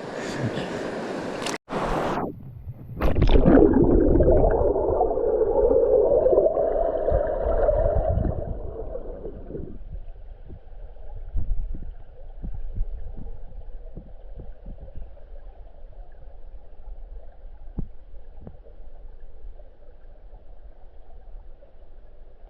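Muffled underwater sound of river water heard through a submerged camera: a loud gurgling rush for several seconds after a brief hiss, settling about ten seconds in to a quiet low rumble with scattered small clicks.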